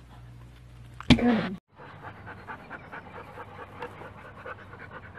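A husky-type dog panting fast and rhythmically, starting about two seconds in. About a second in there is a brief loud sound.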